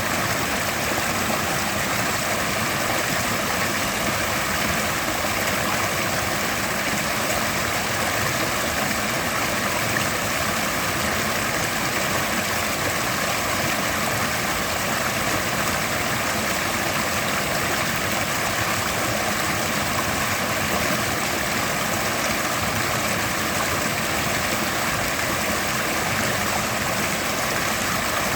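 Mountain river rushing steadily over rocks, a constant broad roar of water.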